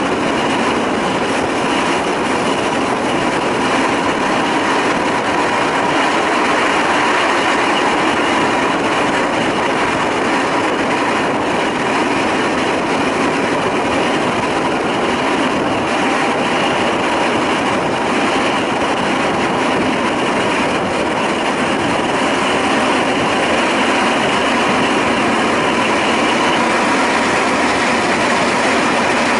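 Zillertalbahn narrow-gauge diesel railcar running along the track, heard from on board. It makes a steady, even running noise with a faint steady tone underneath.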